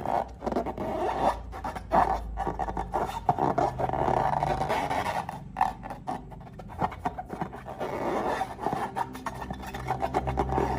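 Slime-making materials being handled and mixed, giving an irregular run of scraping and rubbing sounds.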